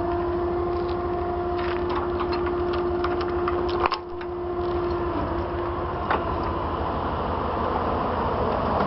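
Tow truck's diesel engine running steadily, with a steady whine over it that stops about five seconds in. A run of metallic clinks and clanks from chains and tow gear comes about two to four seconds in, with one more clank a couple of seconds later.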